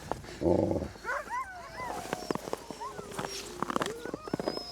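A pack of sled dogs yipping and whining over one another, with a single loud bark about half a second in and scattered clicks throughout.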